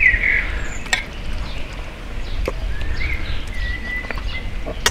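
Birds chirping and whistling in the background over a low rumble. Two sharp clicks, one about a second in and one at the end, come from metal tongs touching the cast-iron Dutch oven as chicken pieces are laid in.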